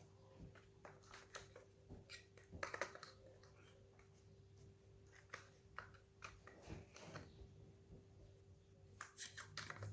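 Faint, scattered clicks and knocks of hard plastic parts of a Dyson V6 cordless vacuum being handled and fitted together, with a quick run of clicks near the end, over a faint steady hum.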